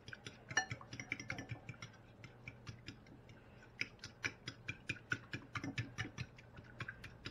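Metal fork beating eggs and half-and-half in a glass pie dish, the tines clicking and scraping against the glass. The clicks are sparser at first, then louder at about three or four a second from about halfway.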